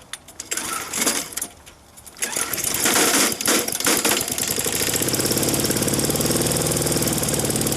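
Small lawn mower engine being pull-started, with rough surges of cranking for the first few seconds, then catching about five seconds in and running steadily with a fast, even beat.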